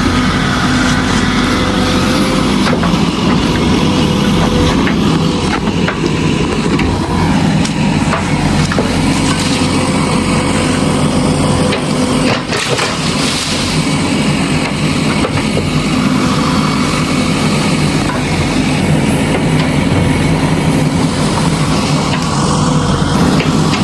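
Diesel engines of heavy construction machinery running steadily, with a few short knocks over the engine noise.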